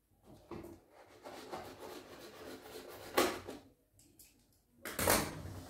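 Packaging being cut open with scissors and handled: irregular rustling and scraping of plastic and cardboard, with louder sharp noises about three seconds in and again about five seconds in.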